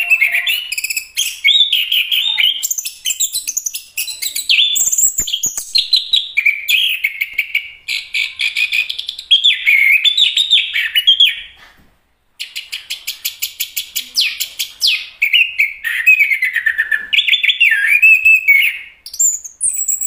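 Chestnut-capped thrush singing a long, fast, varied song of whistled and chattering phrases, with a short break about twelve seconds in.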